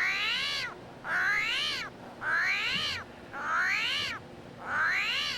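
Armadillo calling: five cries in a row, about one a second, each rising and then falling in pitch.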